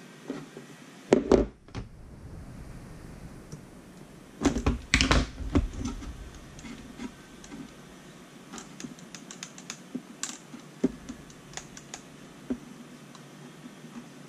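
Clicks, taps and knocks from the hard plastic case and parts of an opened Turnigy i6 RC transmitter being handled on a desk. There are two louder clusters of knocks, about a second in and from about four and a half to six seconds in, then scattered light clicks.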